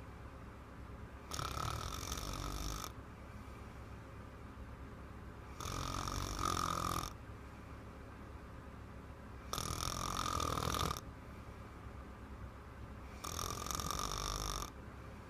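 A little girl snoring loudly in her sleep: four snores, each about a second and a half long, coming about once every four seconds.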